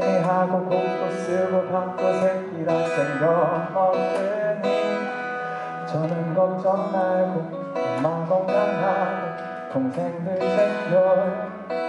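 Live acoustic guitar accompanying a man singing a slow ballad melody into a microphone.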